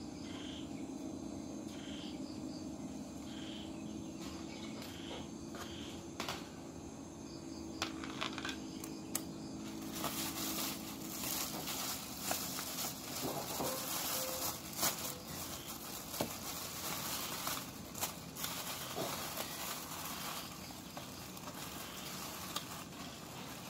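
Plastic bag rustling and crinkling as a hand rummages through it, starting about ten seconds in, with many small crackles. Before that, faint regular chirps over a low steady hum.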